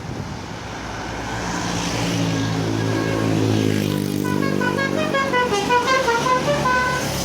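A tour bus's engine grows louder as it approaches. About four seconds in, its Basuri multi-tone 'telolet' horn plays a quick melody of short stepped notes that jump up and down in pitch.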